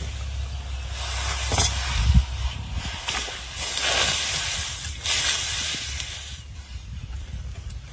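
A whole water snake and meat tipped into a hot wok, sizzling and hissing in waves: about a second in, around four seconds, and again just after five seconds. A steady low rumble runs underneath.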